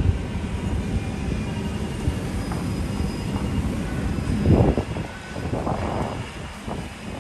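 Low, steady rumble of passing vehicles in a busy city, with a louder rushing swell about four and a half seconds in and another around six seconds.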